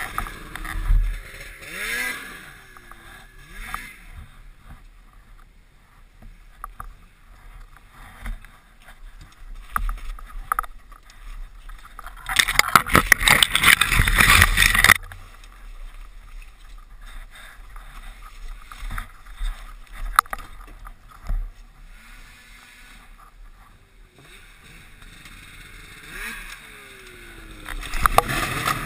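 Snowmobile engine running at low throttle, its pitch rising and falling as it is blipped near the start and again near the end. About midway a loud rush of noise lasting a couple of seconds as spruce branches brush past the rider.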